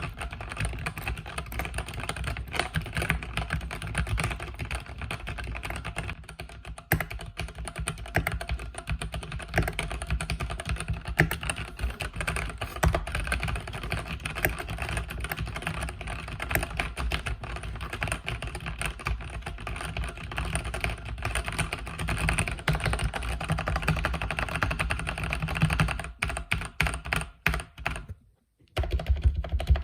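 Continuous fast typing on a mechanical keyboard with red linear switches, a dense stream of key presses that thins out and stops for a moment near the end before picking up again.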